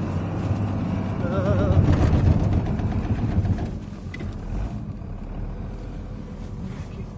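Vehicle engine labouring as it pushes through deep snowdrifts. It swells louder for a couple of seconds and then eases off about four seconds in.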